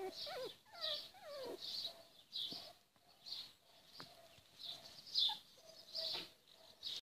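A young puppy and kitten play-fighting, with short, high squeaky cries and whines, some falling in pitch, repeating about once or twice a second.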